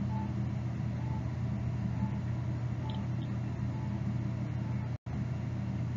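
Steady low electrical hum of background noise, with faint short tones about once a second. The sound cuts out completely for a moment about five seconds in.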